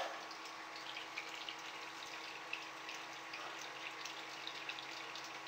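Steady hiss of air drawn through a kitchen extract vent of a heat-recovery ventilation unit into a flow hood, with a faint steady hum underneath and a few faint ticks. The extract is running at about 44 m³/h, the flow rate expected for this vent.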